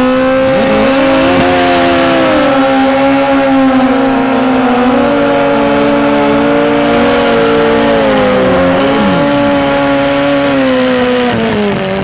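Suzuki Hayabusa's inline-four held at steady high revs during a burnout, its rear tyre spinning on the track. A second engine revs up and down alongside, about a second in and again near nine seconds.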